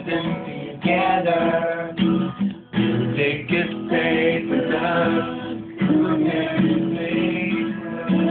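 Acoustic guitar being strummed, playing a song's chords steadily.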